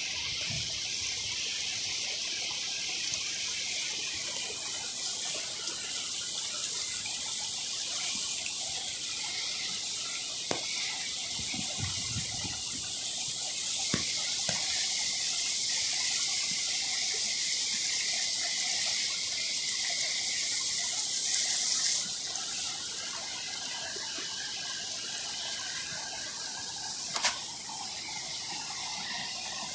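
Fast floodwater and a swollen creek rushing steadily over grass and rocks. A few light knocks are heard, the sharpest near the end.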